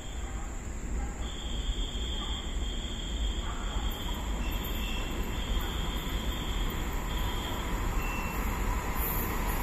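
Freight train headed by Taiwan Railway E200-series electric locomotives approaching, its low rumble growing steadily louder.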